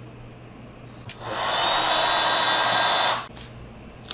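A small electric tool runs steadily for about two seconds, starting about a second in and stopping suddenly: a loud, even hiss with a thin whine in it.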